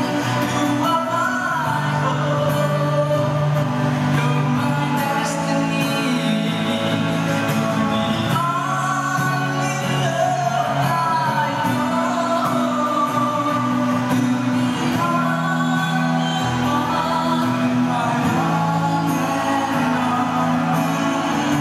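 A man singing a pop ballad over a backing track.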